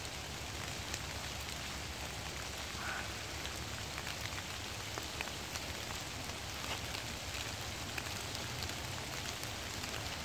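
Rain falling on foliage and leaf litter: a steady hiss sprinkled with many small drop ticks.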